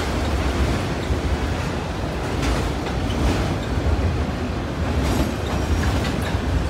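Freight train of autorack cars rolling past: a steady rumble of steel wheels on rail, with a few sharper clacks.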